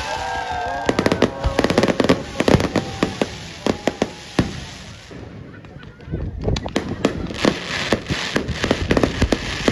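Fireworks and firecrackers going off in dense, rapid cracks and pops, thinning out briefly about five seconds in before picking up again.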